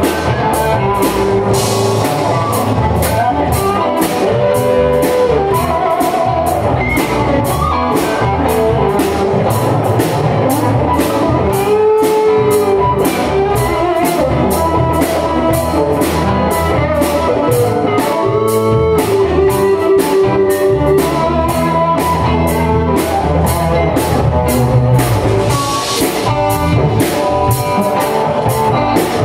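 Live band music: an electric guitar plays lead lines with string bends over a drum kit keeping a steady beat, with about two cymbal strokes a second.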